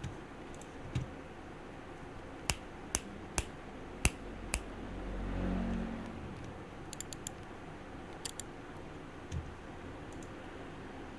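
KTT Sea Salt Lemon linear mechanical keyboard switches, lubed with Krytox 205g0, being pressed as single sharp keystrokes, some spaced out and some in quick runs of two or three. A low rumble swells briefly near the middle.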